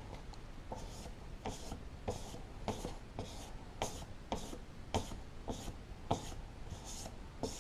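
400-grit sandpaper rubbed over primer on a car's quarter panel in short, even strokes about twice a second, sanding down the guide coat to level and smooth the filled area.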